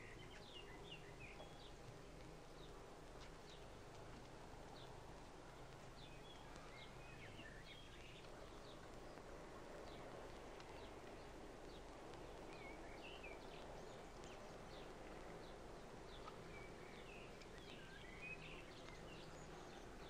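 Near silence: faint hiss and low hum of an old film soundtrack, with scattered faint bird chirps.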